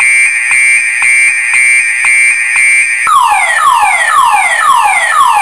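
Car alarm siren cycling through its tones: a pulsing steady high tone, then about three seconds in it switches to falling sweeps repeated about twice a second.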